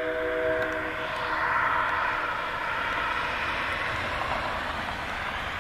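Diesel freight locomotive's multi-chime air horn sounding a held chord that cuts off about a second in, followed by a steady roar that swells and eases as the approaching train nears the crossing.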